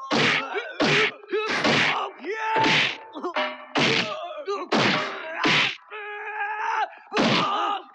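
Film fight punch sound effects: a string of about eight heavy whacks, roughly one a second, with men's grunts and groans between the blows.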